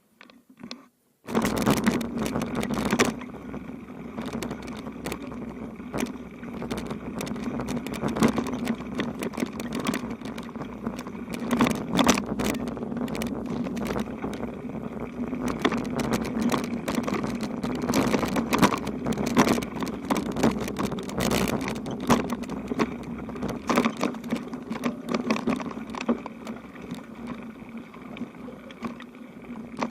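Bicycle rolling over a rough unpaved road: a steady rolling noise with a low hum and frequent rattles and knocks from the bike. It starts suddenly about a second in, after near silence.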